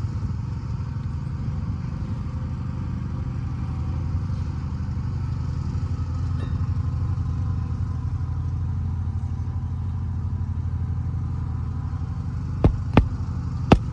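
Hammer driving roofing nails back into an asphalt shingle: three sharp strikes close together near the end. Under it, a steady low engine drone like an idling motor runs throughout.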